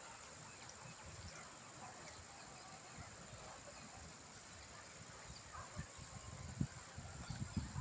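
Quiet outdoor ambience: a steady high-pitched hiss with faint scattered chirps, and irregular low rumbling thumps that grow louder over the last couple of seconds.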